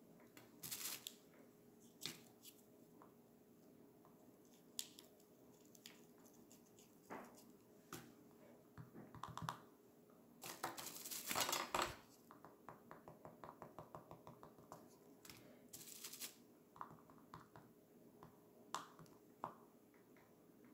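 Faint scratching of a pointed tool scraping through layered oil pastel on paper (sgraffito): scattered short scratches, with a louder run of quick scratching strokes about halfway through.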